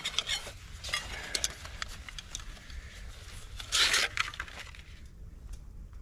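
Metal camp cook pot and stove kit clinking and rattling as they are pulled from a mesh stuff sack, with one brief louder rustling scrape just before four seconds in.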